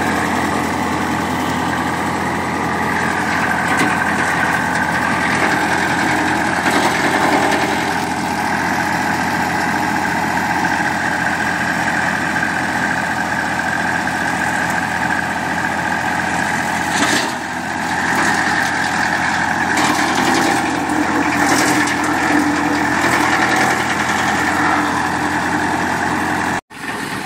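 AGM WC X5G wood chipper running on a tractor's drive, a steady mechanical hum, while olive branches crackle and crunch as they are chipped, with a few sharper cracks about two-thirds of the way through. The sound breaks off suddenly just before the end.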